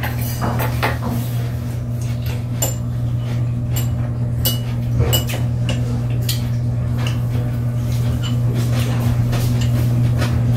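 Chopsticks and tableware clinking and tapping at a dining table: scattered light clicks all through, over a steady low hum.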